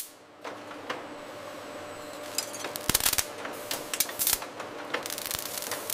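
Bottling-line machinery clattering: irregular sharp clicks and clacks, with a short rattling burst about three seconds in, over a faint steady hum.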